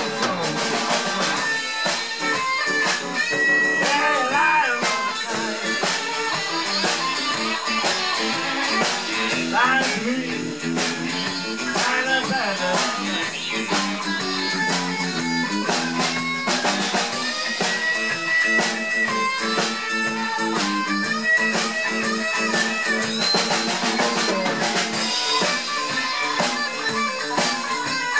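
Live rock band playing an instrumental passage: two electric guitars over a Yamaha drum kit, the lead guitar playing a melodic line with bent notes while the backing guitar and drums keep a steady rhythm.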